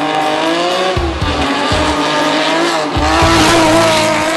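Datsun 280Z race car's engine revving hard as it accelerates past, its pitch wavering up and down and loudest a little past halfway as the car comes closest.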